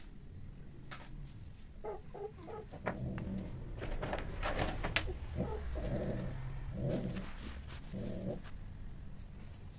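Cats calling while mating: three short calls about two seconds in, then a longer run of low, throaty yowls and growls that fades out about a second before the end.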